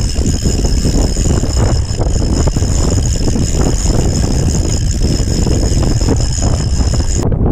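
Strong wind buffeting the camera microphone in a deep, steady rumble, with choppy waves slapping against the kayak. A steady high whine runs under it and cuts off suddenly near the end.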